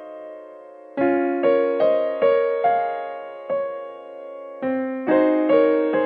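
Background music: a slow piano melody of single struck notes, each ringing and fading, with a short pause about a second in before the phrase resumes.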